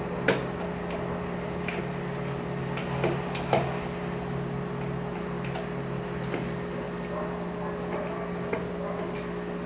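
Spatula stirring a thick, heavy oat-bran batter in a bowl: soft squishing with a few sharp knocks of the spatula against the bowl, the clearest just after the start and about three and a half seconds in, over a steady low hum.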